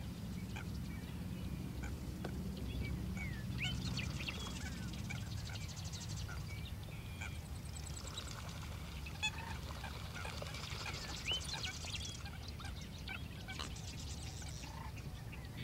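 Many waterbirds calling at once in a marsh, a mix of ducks and geese with short high chirps scattered throughout, over a low steady rumble.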